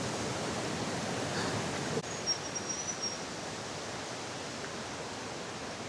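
Steady rushing of falling water from a waterfall or cascade, a little quieter after about two seconds in, with a faint thin high whistle briefly near the middle.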